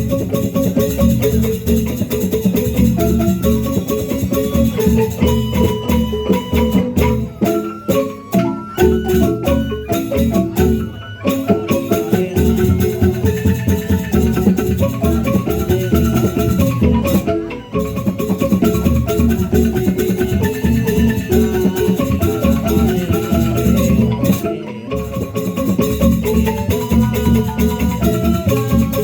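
Music from an ensemble of mallet-struck tuned percussion in the style of a gamelan, playing fast, dense running notes over a low rhythmic pulse.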